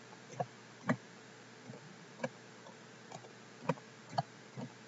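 Computer keyboard keys pressed one at a time: about eight faint, separate clicks at an uneven pace as a word is typed.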